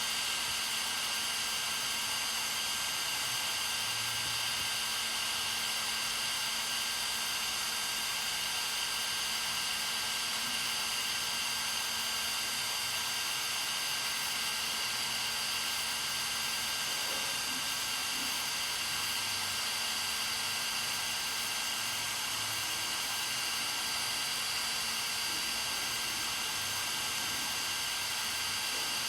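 A machine running steadily: an even hiss with several high whining tones and a low hum, unchanging throughout.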